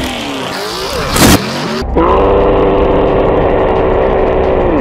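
Off-road pickup truck's engine revving, with one sharp crash about a second in; from about two seconds in the engine holds a steady high rev.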